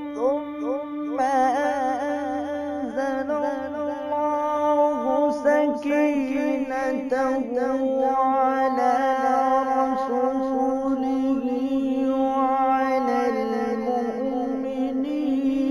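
A solo male voice reciting Arabic in the melodic Quranic style, drawing out long held notes with fine ornaments. The pitch steps down to a lower note about thirteen seconds in.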